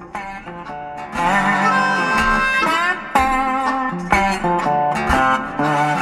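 Guitar-led instrumental music with plucked notes and bending, sliding pitches; it gets louder about a second in.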